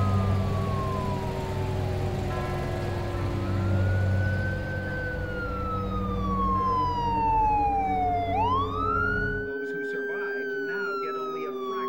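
A siren wailing in long sweeps: a quick rise in pitch, then a slow fall lasting several seconds, repeated. Under it runs a steady low hum that cuts out about three-quarters of the way through.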